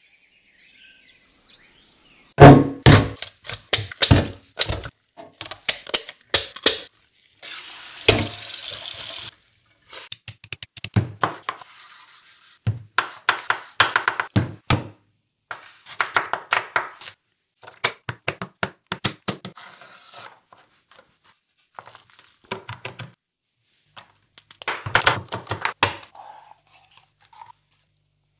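Bursts of sharp knocks from a kitchen knife cutting through vegetables such as tomato onto a wooden cutting board, coming in short clusters of quick strokes. About eight seconds in, a steady hiss lasts roughly two seconds.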